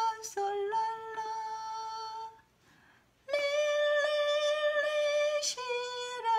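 A woman singing a slow melody in long held notes on sung note names, with a short pause about two and a half seconds in.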